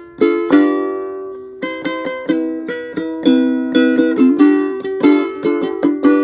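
Ukulele strummed in an easy rhythmic pattern, chords ringing between strums, with one chord left to ring about a second early on before the strumming picks up again.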